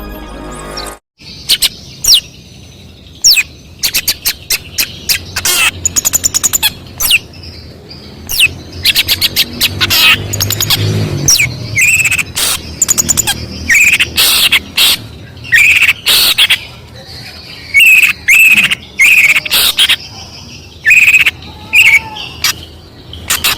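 Long-tailed shrike (cendet) singing a loud, varied song of sharp chirps, quick rattles and high downward-sweeping whistles, laced with imitations of other birds' songs. Brief music ends about a second in.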